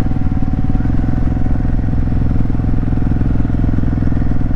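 Kawasaki Vulcan VN750's V-twin engine running steadily while the motorcycle is ridden.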